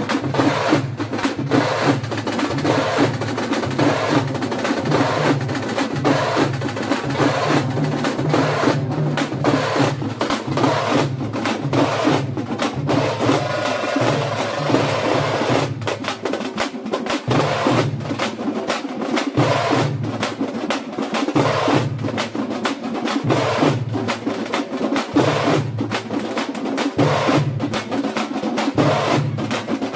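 An ensemble of thamate frame drums beaten together with sticks, loud and continuous, with dense rapid strikes over a repeating rhythm.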